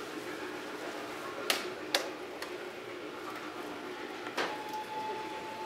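Three sharp clicks over a steady hall murmur, the first two close together and the third a few seconds later. Just after the third click a faint steady whine begins and holds.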